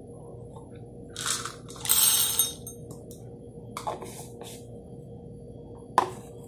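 Whole coffee beans poured from a small plastic container into the hopper of a wooden hand coffee grinder, rattling in two bursts, the second longer and louder. A few light clicks follow as the hopper is handled, then one sharp tap near the end.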